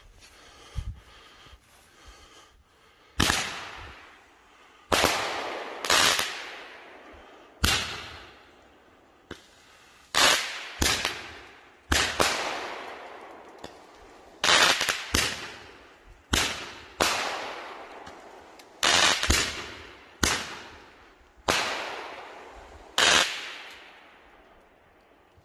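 A pair of World Class Fireworks 'Beyond The Glory' five-shot roman candles firing: a long run of sharp bangs, one every second or two, each trailing off.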